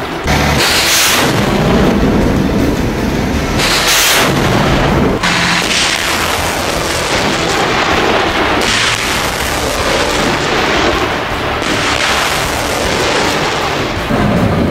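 Truck-mounted long-range multiple rocket launcher firing a salvo: rockets launch one after another a few seconds apart, each a loud rushing blast over a continuous rumble.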